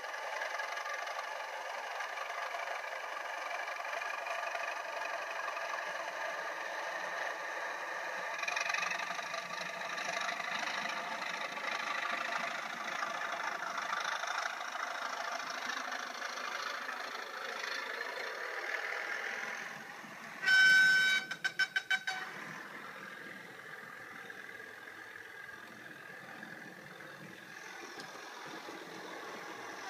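Sound-decoder recording of a BR Class 37 diesel engine played through a model locomotive's small speaker, running steadily, then a loud horn blast about two-thirds of the way in, followed by a quick run of short toots, after which the engine sound drops lower.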